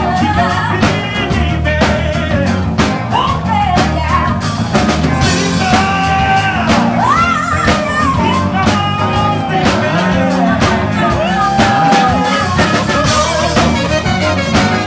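Live band playing: a lead singer's melody, with held, sliding notes, over bass guitar, drum kit and keyboard.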